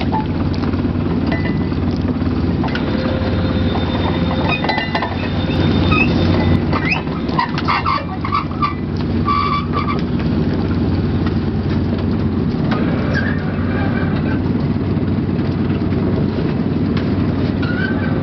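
Fishing boat machinery running with a steady low drone while oyster baskets are hauled aboard. Scattered clanks and short squeaks come through in the middle.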